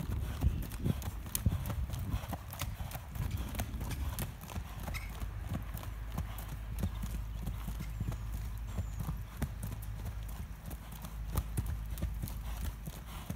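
American Saddlebred gelding's hooves striking the sand arena footing under saddle: a quick, continuous run of hoofbeats, several a second.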